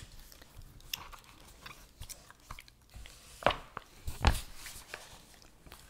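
Gum chewing close to the microphone: small wet clicks and smacks. Two much louder thumps come about three and a half and four seconds in, as the paper word-search book is moved.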